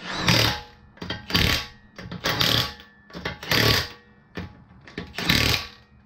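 Milwaukee Fuel cordless impact wrench running the lug nuts onto a wheel, five short hammering bursts a second or so apart, one for each nut.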